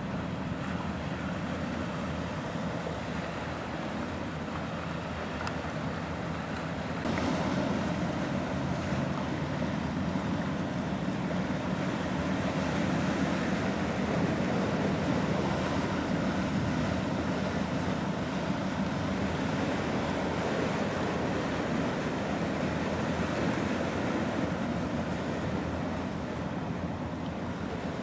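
Wind buffeting the microphone and small sea waves washing against a seawall, a steady rushing noise that grows louder about seven seconds in.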